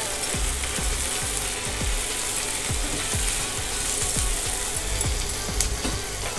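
Bitter gourd and onion pieces frying in a pan with a steady hiss, stirred with a spatula that knocks and scrapes against the pan about two to three times a second.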